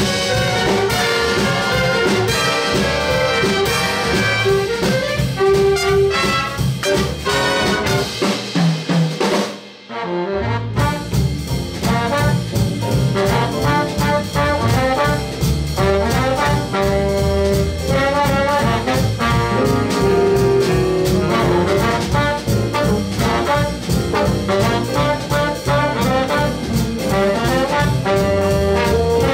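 Jazz big band of saxophones, trombones and trumpets with drum kit, upright bass and piano playing a swing chart. The band stops for a brief break about ten seconds in, then comes back in at full volume.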